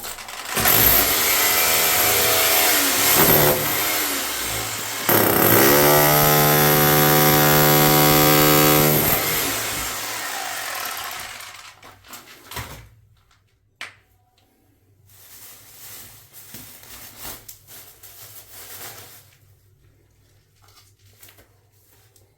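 A handheld electric power tool running loudly for about ten seconds as he digs into the floor around the drain pipe, its whine settling to a steady pitch midway, then a quieter stretch of noise a few seconds later.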